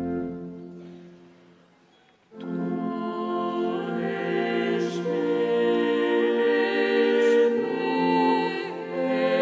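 A held instrumental chord fades away. About two seconds in, a choir with accompaniment comes in, singing a slow, sustained hymn in several voice parts.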